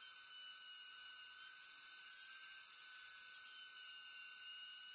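Faint, steady hiss with a thin, high-pitched whine. This is the recording's background noise floor; no router or other tool sound is heard.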